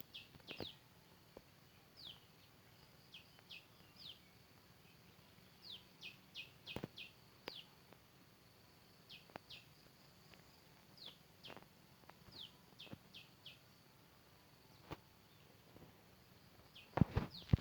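A bird calling over and over in short chirps that slide down in pitch, singly or in quick runs of two to four, over a faint steady high whine. Near the end comes a cluster of sharp knocks and clatter.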